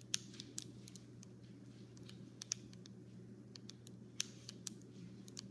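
Faint, irregular crackling and ticking of foil self-inflating balloon pouches crinkling as they swell, over a steady low hum.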